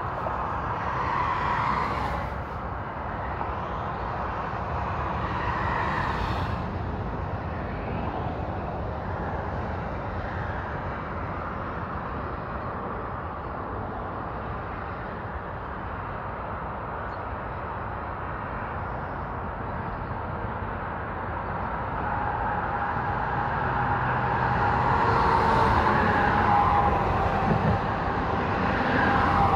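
Interstate highway traffic: a continuous rush of tyres and engines from cars and trucks passing at highway speed, swelling as individual vehicles go by. Near the end a louder vehicle passes with a whining tone over the tyre noise.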